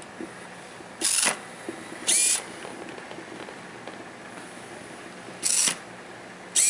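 Small RC servo motor whirring in four short bursts, each about a third of a second long, as it raises and lowers the scale snow plow blade.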